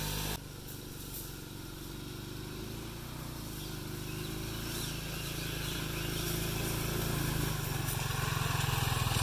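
Homemade off-road buggy's Bajaj 175cc single-cylinder engine running as the buggy drives toward the microphone, growing steadily louder. The sound changes abruptly just after the start.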